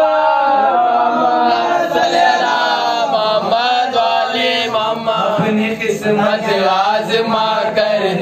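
A young man chanting devotional verses into a handheld microphone in a melodic, sung recitation.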